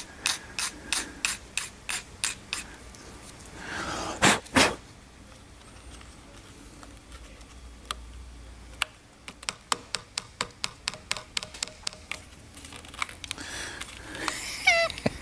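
A part being shaved down by hand, with quick scraping strokes at about four a second. Two louder strokes come about 4 seconds in. After a quiet stretch, another run of strokes follows from about 9 to 13 seconds.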